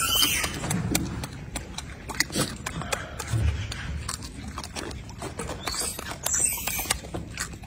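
Golden snub-nosed monkey chewing food with noisy lip-smacking: an irregular run of short smacking clicks.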